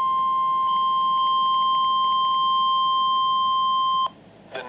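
Emergency alert attention tone from a NOAA Weather Radio broadcast: a single steady high-pitched tone, with a few faint short pips over it in its first half. It cuts off abruptly about four seconds in, signalling that the spoken warning is about to follow.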